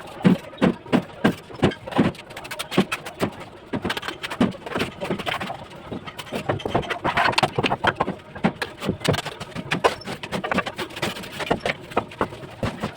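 Bricklaying work: a rapid, irregular run of taps and knocks, several a second, as a mason's trowel works bricks and mortar.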